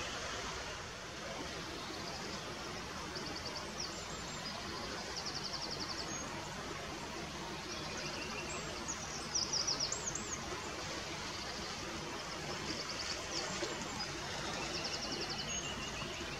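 Steady rushing of river water, with small songbirds singing rapid high trills over it several times, loudest about ten seconds in.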